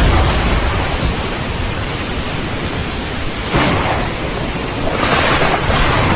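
Thunderstorm: steady rain with low rolling thunder, and a sudden louder burst of thunder about halfway through.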